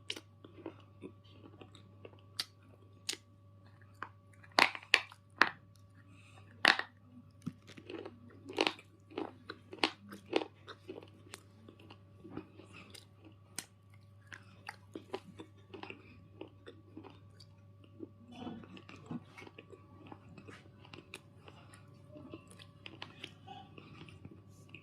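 A black unshaped bar crunching with sharp, irregular cracks, the loudest cluster about five seconds in, then softer crackles, over a faint steady hum.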